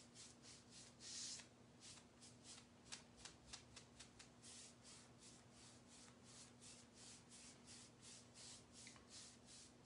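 Faint, quick swishes of a paintbrush working watered-down chalk paste over a wooden board, about three or four strokes a second, over a low steady hum.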